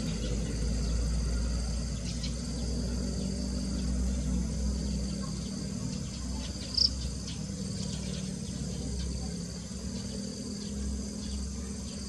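Steady insect chorus, a constant high-pitched trilling at several pitches over a low rumble, with one short, sharp high chirp about seven seconds in.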